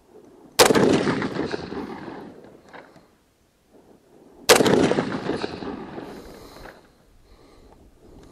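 M1 Garand semi-automatic rifle firing two .30-06 rounds about four seconds apart, each shot trailing off in an echo over about two seconds.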